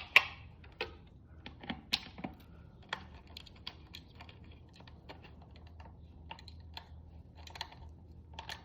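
Irregular light clicks and taps of small plastic helmet parts and screws being handled. A few sharper knocks come right at the start and about two seconds in.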